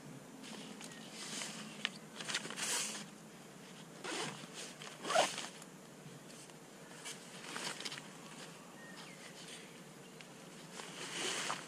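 Nylon fishing weigh sling being zipped shut and handled: several short zipping and fabric-rustling strokes, the loudest about five seconds in.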